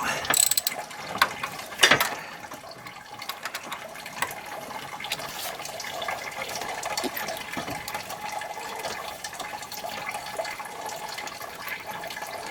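Hand socket ratchet clicking as bolts are worked off around the engine's timing belt, with a few sharper metal knocks in the first two seconds.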